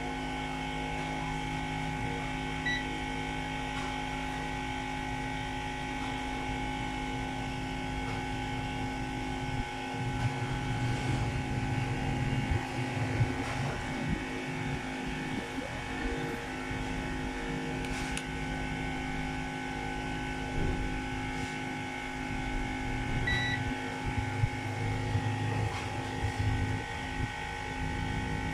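Steady electrical hum made of several fixed tones, with a low rumble swelling up through the middle. Two short high beeps sound, one about three seconds in and one near the end.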